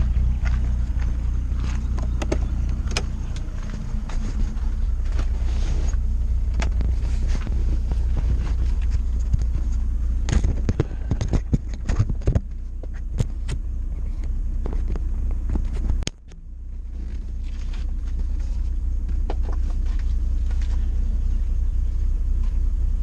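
A car engine idling steadily, with clicks and knocks from the camera being handled and mounted inside the car a little before the middle. The sound cuts out suddenly about two-thirds of the way in and swells back.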